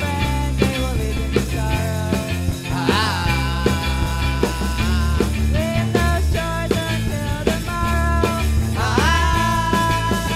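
Background music with a steady drum beat and bass; a lead melody slides up into long held notes about three seconds in and again near the end.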